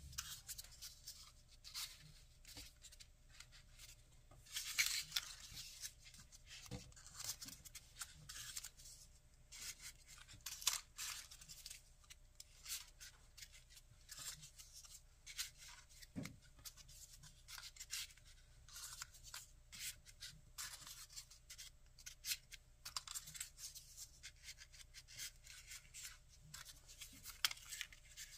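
Paper rustling and crinkling as hands fold small white paper triangle units for 3D origami, in scattered short crackles.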